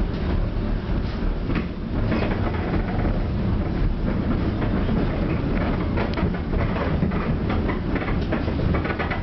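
Tram running between stops, heard from inside the car: a steady low rumble with frequent rattles and clicks of the wheels on the rails.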